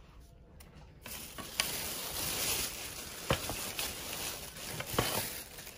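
Thin plastic shopping bag rustling and crinkling as a hand rummages inside it, starting about a second in, with a few sharper crackles.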